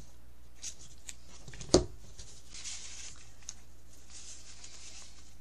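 Paper being handled at a craft table: soft rustling of sheets and strips, with a few light ticks and one sharp click a little under two seconds in.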